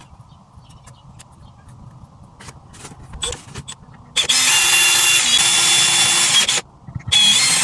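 Power drill running in two bursts of about two seconds each with a steady motor whine, drilling a shallow hole with the bit taped as a depth stop. A few light clicks come before the first burst.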